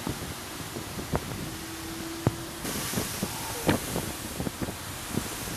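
Hurricane wind gusting across the microphone, with a rushing hiss that gets stronger about halfway through. A few short knocks sound over it.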